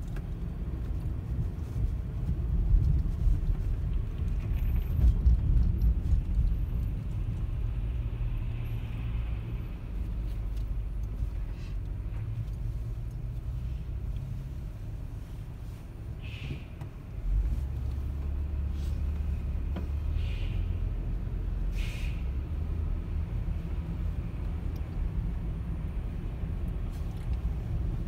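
Low, steady rumble of a car's engine and road noise heard from inside the cabin while driving in city traffic. It dips while the car waits in traffic and comes back up as it moves off again about two-thirds of the way through.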